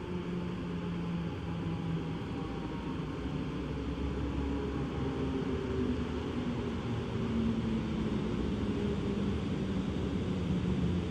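Electric locomotive-hauled train approaching a station, a low hum with a few drifting tones over a rushing noise, growing slowly louder as it nears.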